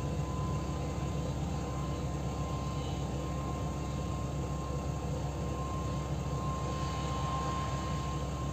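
Diesel engine of a Case IH four-wheel-drive tractor pulling an air drill, a steady low drone with a thin high whine held over it.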